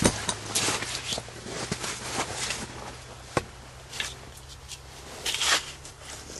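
Irregular rustling, shuffling and crunching of a person moving about and shifting fishing gear, with a single sharp knock about three and a half seconds in.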